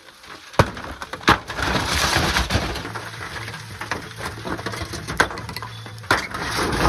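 Sharp wooden knocks and crunching from the old timber roof framing as a roofer climbs over it and handles the rotten wood. A low steady hum sits under the middle few seconds.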